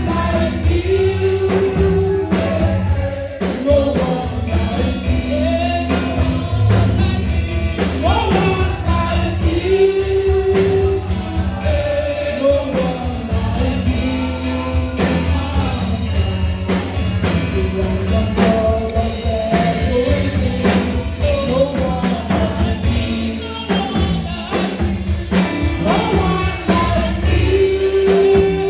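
Live gospel praise music: voices singing a melody over a band with bass and a steady drum beat.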